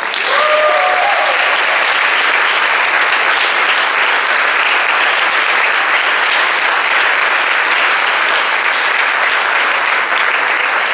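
Audience applauding steadily throughout, with a couple of short cheers or whoops in the first second or two.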